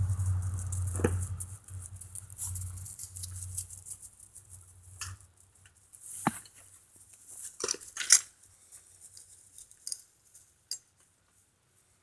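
Unboxed bicycle parts and packaging being handled: scattered clicks and rattles, loudest about eight seconds in. A low hum fades out in the first couple of seconds.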